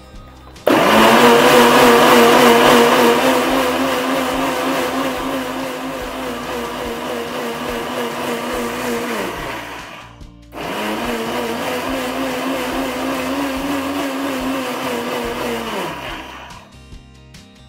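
Electric mixer grinder running, grinding mint chutney to a fine paste in its steel jar. It starts about a second in and runs for about nine seconds, then winds down and stops. After a short break it starts again, runs for about six seconds and winds down.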